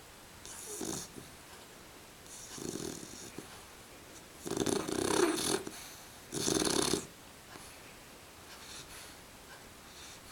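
Snoring: a run of rasping snoring breaths about every one to two seconds. The two loudest come near the middle, and a fainter one follows near the end.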